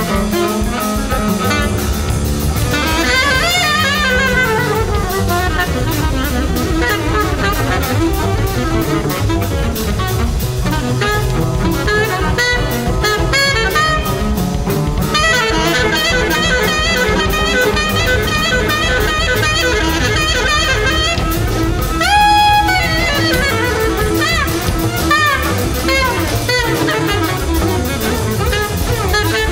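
Live free-jazz quartet: alto saxophone playing winding, wavering lines over two double basses and a drum kit. A loud held high note comes about two-thirds of the way through and slides down.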